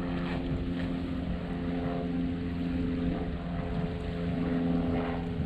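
An engine droning steadily at an even pitch, over a low rumble of wind on the microphone.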